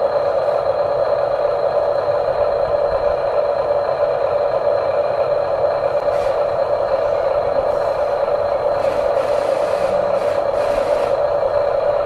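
Steady whine of RC construction models' small electric motors and gearboxes, with a few faint scrapes and clicks.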